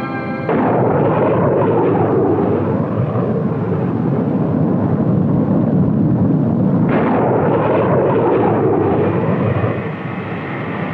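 Military jet aircraft flying low past, a loud, rough rumble that starts about half a second in. A second, brighter jet pass cuts in about seven seconds in and eases off near the end.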